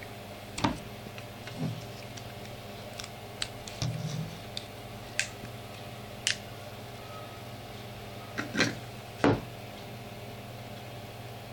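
Scattered clicks, taps and light scrapes of hands handling a plastic laptop battery pack and its cylindrical 18650 lithium cells, with a steady faint hum underneath. The loudest knocks come about nine seconds in, as a flat screwdriver is worked against the pack's plastic frame.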